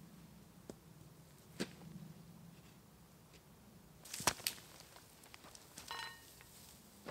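A few sharp knocks and taps of wood and stone as shelter posts are worked into their holes, the loudest two close together about four seconds in. A brief high squeak comes near six seconds.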